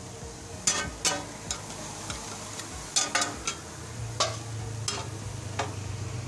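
Metal spatulas scraping and clacking on a flat iron griddle as spiced egg is chopped and stirred, over a steady frying sizzle. The clacks come irregularly, sometimes two or three close together.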